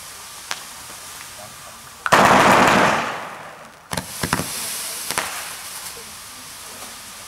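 Weco 'Funky Curls' 35-shot fireworks battery firing. A couple of small pops come first. About two seconds in there is a loud burst that fades over a second or so, and a quick run of sharp cracks and fading crackle follows around four to five seconds in.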